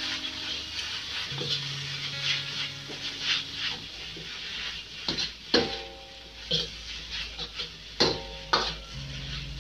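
Metal spatula scraping and clanking against a stainless steel wok as flat rice noodles are stir-fried, with a frying sizzle. Several sharp clanks come in the second half.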